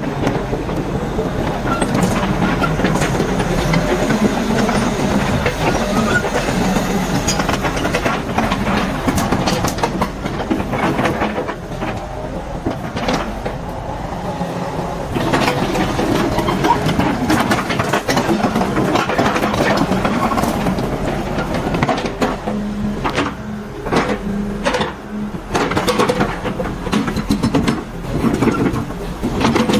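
Komatsu PC110 crawler excavator's diesel engine running steadily, with repeated clanks and clatter from its steel tracks and undercarriage as the machine moves.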